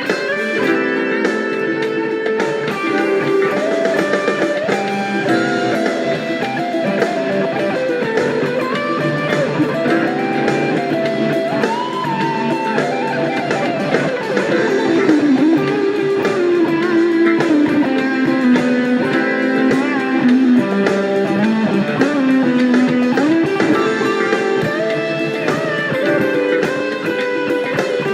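Electric guitar played through a Fuzz Face Mini fuzz pedal, improvising a lead line in A minor: held notes with pitch bends and slides.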